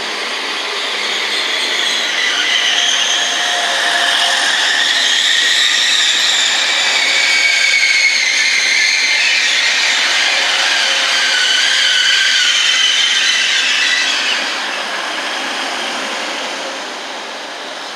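Train running along the platform, with several high, wavering squealing tones over its noise; it builds over the first few seconds and eases off about fourteen seconds in.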